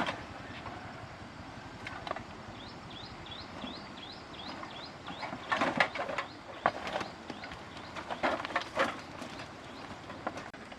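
A bird calls a quick series of short rising notes, about four a second, then a run of sharp knocks and clatters of hard objects being handled.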